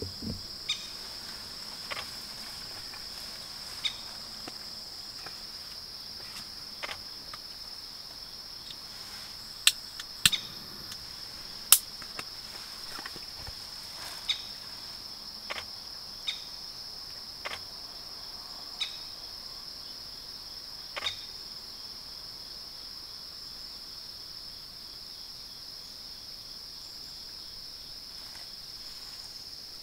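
Insects trilling steadily at a high pitch, with scattered sharp clicks, the loudest three coming close together about a third of the way in.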